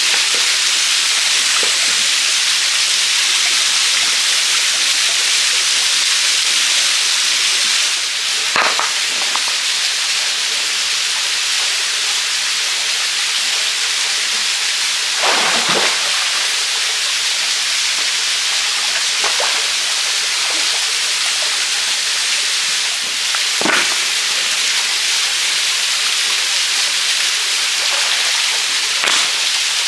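Steady rushing of a small waterfall pouring into a shallow forest pool, with about four short splashes as hands move through the water among the stones.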